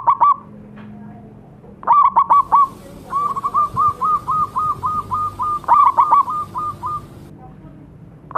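Zebra dove (perkutut) cooing in quick, rolling runs of staccato notes: a short phrase at the start, another about two seconds in, then a long string of evenly repeated softer coos and one more rolling phrase near the end.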